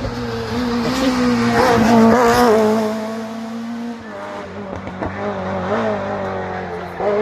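Rally car passing at speed, its engine revving with quick rises and falls in pitch. It is loudest about two seconds in, then fades as the car drives off round the bend.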